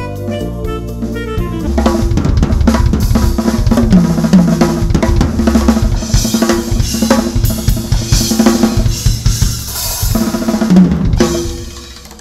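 Gretsch drum kit played in a fast solo: rapid fills across snare, toms and bass drum with crashing cymbals, coming in about two seconds in over the tail of pitched backing music and dying away near the end.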